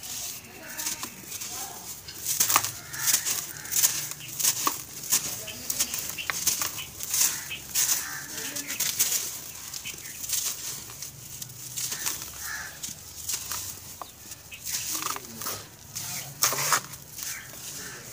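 Hands crushing and crumbling dry, gritty chunks of sandy cement-like material over loose powder: a dense run of crisp crunches and gritty crackles, loudest in a few sharper squeezes.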